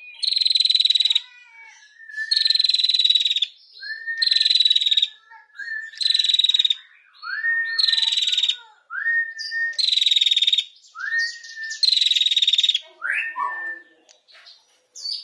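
A female prenjak (prinia) calling over and over in its rapid rattling 'ngetir' trill. About seven rattles of roughly a second each come at even intervals, with short rising chirps between them and a few softer, varied notes near the end.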